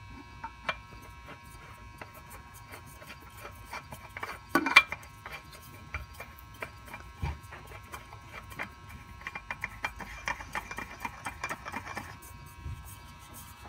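Spin-on oil filter being threaded onto the engine's filter mount by hand: light rubbing and small clicks of the filter against its threads and mount, with one louder knock about a third of the way in and a quicker run of ticks near the end.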